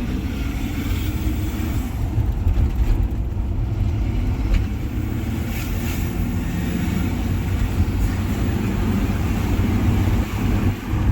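Isuzu Trooper's 4JX1 3.0-litre turbodiesel engine running under load while the vehicle is driven, with a steady low rumble of engine and road noise.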